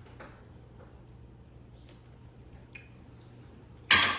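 Quiet eating noises with a few faint clicks over a steady low hum, then one loud, sharp knock about four seconds in.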